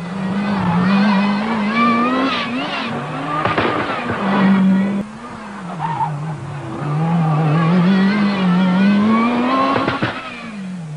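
Lancia Delta S4 prototype's supercharged and turbocharged four-cylinder engine revving hard, its pitch climbing and dropping several times through the gears. Short hissing bursts come as the revs fall: the intake relief valve venting excess boost, the 'sneezed whistle' the S4 was known for.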